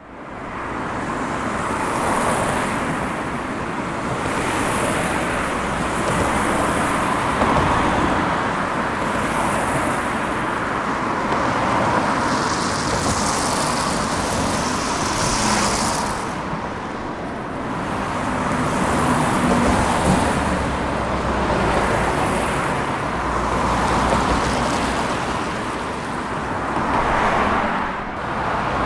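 Light road traffic: a steady wash of cars passing, swelling and fading every few seconds as individual vehicles go by.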